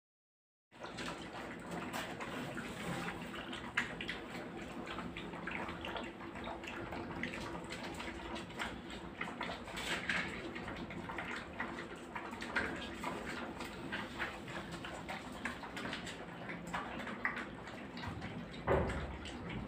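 A litter of puppies eating from a shared bowl: a dense run of wet lapping and smacking clicks over a faint steady hum, with a louder thump near the end.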